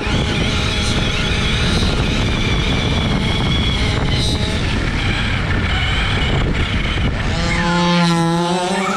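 Radio-controlled cars running hard over rough ground: a steady, loud rush of drive and tyre noise with a faint high motor whine in it, and near the end one motor's pitch climbs as it accelerates.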